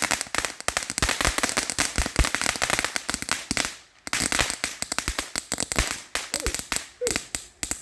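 Fireworks crackling in a rapid run of sharp pops, with a short lull about four seconds in, then a second run that thins out near the end.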